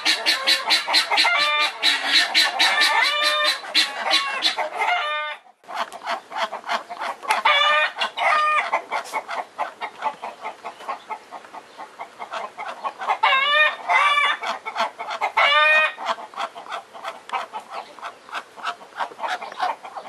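Farmyard poultry calling together: a fast, steady chattering rattle runs throughout, with louder drawn-out calls breaking in over it several times. The sound drops out briefly about five and a half seconds in, then resumes.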